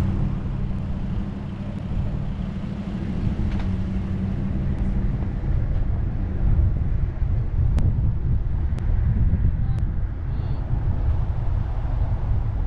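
A car driving along a road: steady low road and engine rumble, with an engine drone that drops away about six seconds in.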